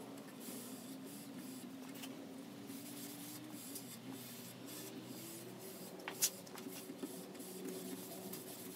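Cotton rag in a gloved hand wiping wet oil-varnish finish off a wooden board: soft, repeated swishing strokes. A faint wavering tone runs underneath, and a sharp tick comes about six seconds in.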